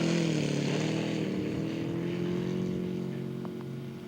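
Laser V200 four-stroke V-twin model aircraft engine running in flight on a radio-controlled scale Nieuport 28, the pitch dipping about half a second in and then holding steady as the sound eases slightly.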